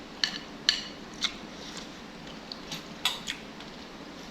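Close-up eating sounds during a noodle-soup meal: a scattered series of short clicks and taps from utensils and chewing, with quiet in between.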